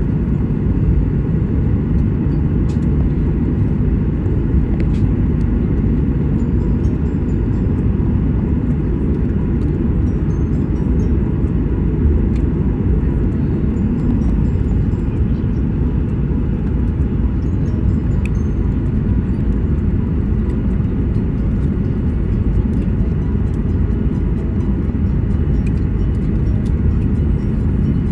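Steady low rumble of airliner cabin noise from the running engines and air system, heard from inside the cabin.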